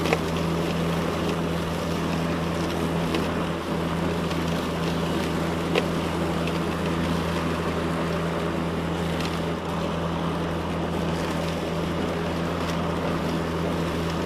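Ryobi 40V HP Whisper Series cordless self-propelled mower running steadily while cutting grass: its brushless motor and 21-inch blade give a quiet, even hum, with a couple of brief ticks.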